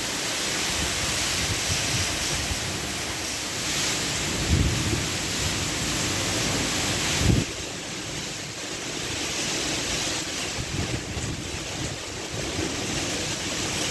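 Hurricane wind and heavy rain: a dense, steady rush of rain and gusting wind, with gusts buffeting the microphone in low bumps about four and a half and seven seconds in.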